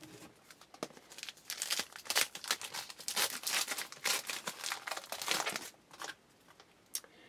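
Thin clear plastic crinkling and crackling in the hands, a dense run of rapid crackles that starts about a second in and stops a little before the end, with a single click just before the end.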